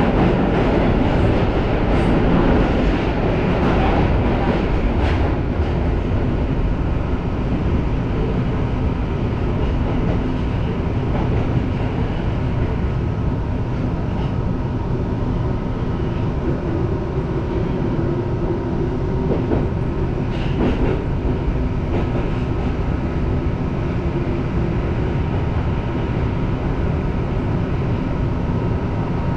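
Tokyo Metro Marunouchi Line subway train running steadily along the track, heard from inside the front car: a continuous rumble of wheels on rail with a faint steady high tone, slightly louder in the first few seconds. A few sharp clicks come through, two of them close together about twenty seconds in.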